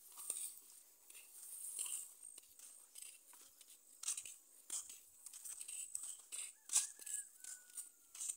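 Footsteps along a dirt path through dry grass, an irregular run of soft crunching and rustling steps. A faint thin whistle-like tone sounds twice, a few seconds before the end.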